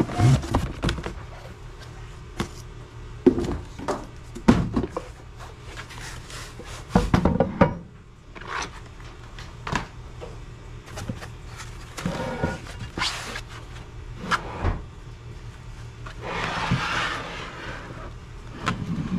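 Scattered knocks and thunks as a boat jack plate and its box and parts are handled and unpacked, with a burst of rustling about three-quarters of the way through. Faint background music underneath.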